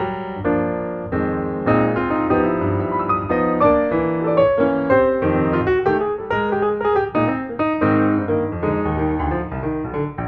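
Background piano music, a steady stream of quickly struck notes over lower bass notes.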